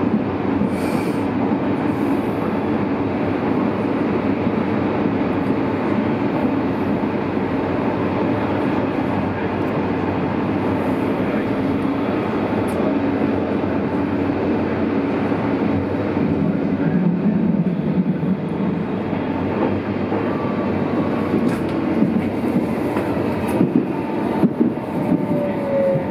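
Berlin U-Bahn class H train running through the tunnel, heard from inside the car beside the doors: a steady rumble of wheels on track. There are a few rail-joint clicks in the second half and a falling tone near the end.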